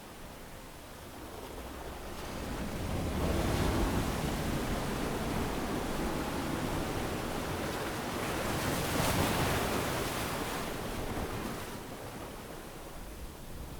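Surf on a beach: waves breaking and washing up the sand, a hiss that swells a few seconds in, is loudest about two-thirds of the way through, then draws back.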